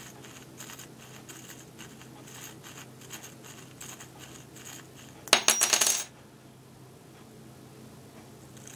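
4 mm drill bit turned by hand in the inlet holes of a LEGO pneumatic switch's plastic body, a faint repeated scratching as it shaves off drilling burrs. A little over five seconds in, a loud metallic clatter lasting under a second.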